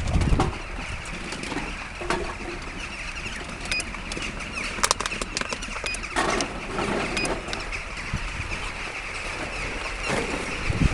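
Rustling, crunching handling noise with deep wind buffeting at the start and near the end, a quick run of clicks about five seconds in, and three faint short high beeps a second or two apart.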